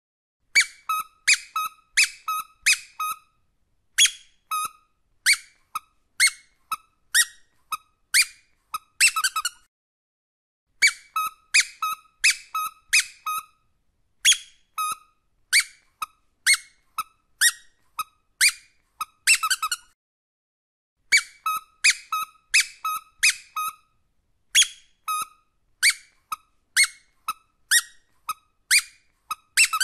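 Squeaky rubber dog toy squeezed over and over: quick runs of short, high squeaks with brief pauses between the runs.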